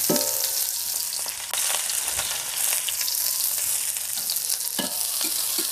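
Sliced chilies and onions sizzling as they fry in hot oil, a steady hiss that grows louder about a second and a half in.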